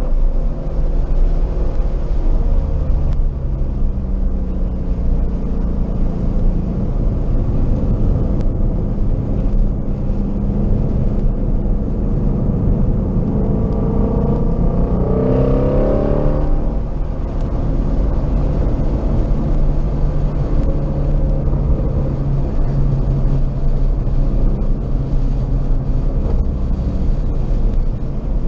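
Car engine under hard driving, heard from inside the cabin over steady road and wind noise. Its pitch climbs for a few seconds and falls away about sixteen seconds in, then settles into a steady pull.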